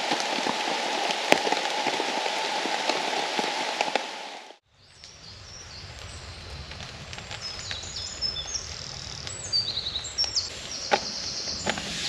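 Steady rain drumming on a hammock tarp, with individual drops ticking, which cuts off about four and a half seconds in. It is followed by quieter dripping in wet woodland, with bird song from about seven seconds in and a few sharp taps near the end.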